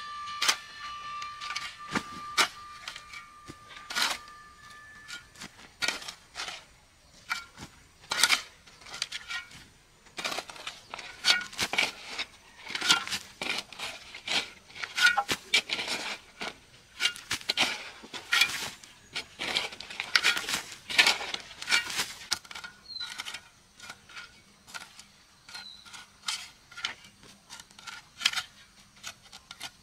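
A run of irregular sharp knocks and clinks of hard objects, at times several a second, with a steady high tone during the first five seconds or so.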